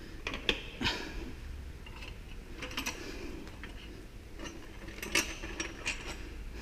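Scattered metallic clinks and knocks from the loosened stock exhaust silencer of a Yamaha Ténéré 700 as it is handled and worked off its mounting.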